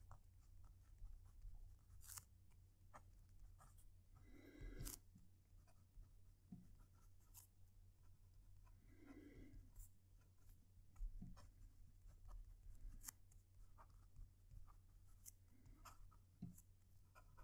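Fine nib of a PenBBS 456 fountain pen writing words on lined paper, close-miked: faint scratchy strokes and light ticks as letters are formed, over a steady low hum.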